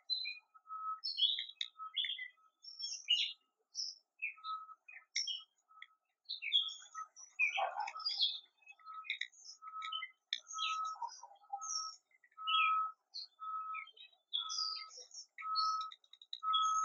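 Songbirds chirping and calling around a backyard feeder in many short, quick notes. Running through them is a regular short level note, about once a second, that grows louder toward the end.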